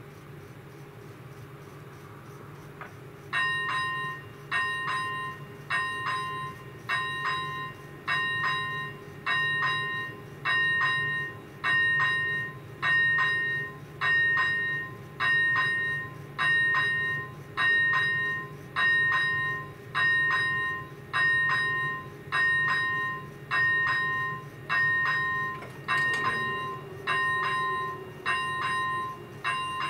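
Railway level-crossing warning bell starting up about three seconds in and striking about once a second, each stroke a bright ding that dies away: the crossing's warning for an approaching train.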